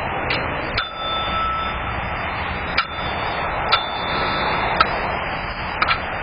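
Steady hiss of outdoor background noise, heard through a doorbell camera's small microphone, with about six sharp clicks at irregular intervals. A single high beep lasts about a second, near the start.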